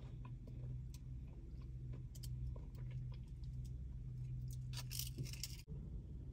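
Low, steady engine hum of a river motor cruiser passing by, with scattered faint clicks and a short flurry of high ticks; the sound cuts off abruptly near the end.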